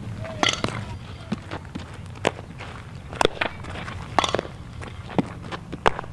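Softball fielding drill: about six sharp pops, roughly a second apart, of a softball smacking into leather gloves and off a bat, over a steady low hum.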